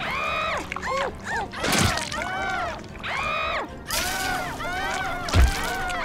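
A high-pitched cartoon voice gives a run of short cries, each rising and falling in pitch, as a werewolf transformation sound. A sharp crack comes about two seconds in, a brief hiss a little before four seconds, and a heavy thud near the end.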